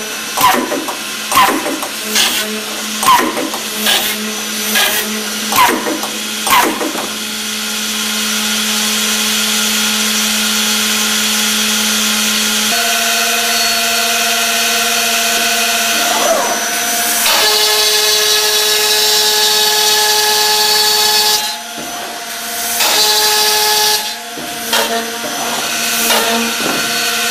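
Accu-Systems OHV CNC boring and routing machine working a particleboard panel. It makes a quick series of drill strokes, about one a second, and then a steady high spindle whine as it routes, which changes pitch several times and dips briefly twice near the end.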